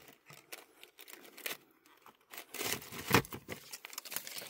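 Irregular rustling and crunching, as of someone shifting over dry debris and loose rock, in small clusters about a second and a half in, around three seconds in, and near the end.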